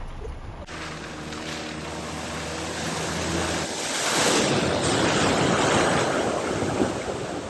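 A car's engine running low and steady as it drives into deep floodwater at a ford. About halfway through, the rush and splash of water churned up around the car grows loud and drowns out the engine.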